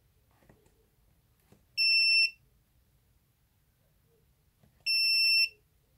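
Mustool MT8206 multimeter's built-in beeper sounding twice as its front-panel buttons are pressed, about three seconds apart. Each beep is a high, clear tone about half a second long. It acknowledges a key press as the meter is switched from frequency to duty-cycle display.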